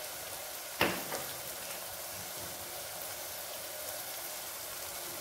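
Onion-tomato masala sizzling gently in oil in an aluminium pressure cooker, its water cooked off so the oil has separated; a steady, soft frying hiss with one sharp click about a second in.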